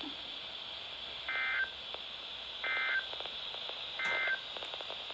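Emergency Alert System end-of-message data bursts: three short bursts of warbling digital tones about 1.3 seconds apart, over a steady radio hiss. They signal the end of the alert broadcast.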